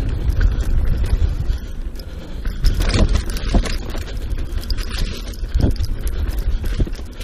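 Mountain bike rolling fast down a dirt singletrack: knobby tyres running over dirt and roots with a steady low rumble, and a few sharp knocks and rattles from the bike over bumps about three seconds in and again near six seconds.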